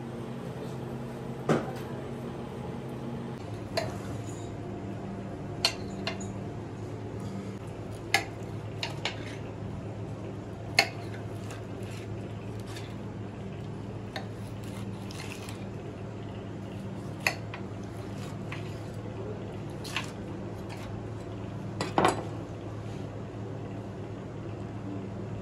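Chef's knife slicing through grilled squid and striking the white platter beneath: about ten sharp clinks at irregular intervals. A steady low hum runs underneath.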